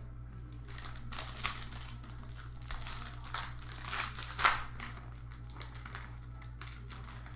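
Crinkling of a trading-card pack wrapper being handled, in irregular bursts with the loudest crackle about four and a half seconds in, over a steady low electrical hum.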